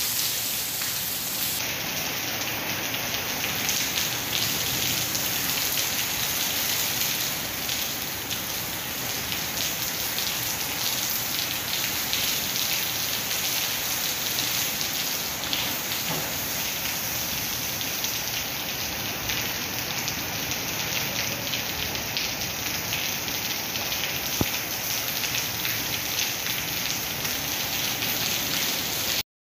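Heavy rain falling steadily, a dense even hiss of drops on leaves, grass and wet paving, with one sharper tick late on.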